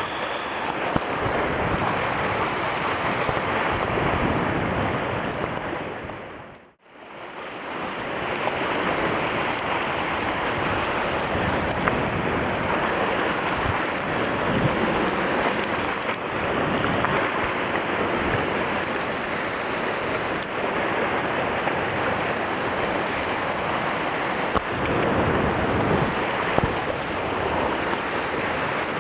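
Sea surf washing over rocks, a steady rushing wash, with wind buffeting the microphone. The sound dips briefly to near silence about seven seconds in, then comes back.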